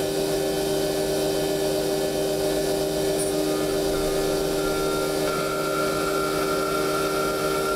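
DMU50 CNC machining center's end mill cutting a pocket in 6061 aluminum: a steady cutting and spindle sound with a few held tones, joined by a higher whine about five seconds in.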